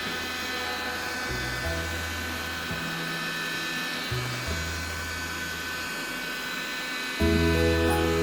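Background music with a slow bass line that changes note about every second and a half; the music gets fuller and louder about seven seconds in.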